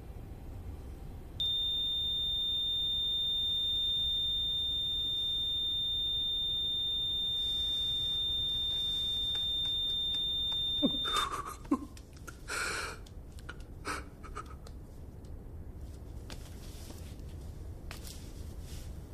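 A heart monitor's flatline tone: one steady high electronic beep held for about nine seconds, the sign that the dying man's heart has stopped. It cuts off abruptly, followed by a few soft rustles and clicks.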